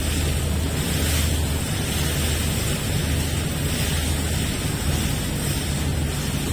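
Steady low hum of a boat's engine under way, mixed with water rushing past the hull and wind buffeting the microphone.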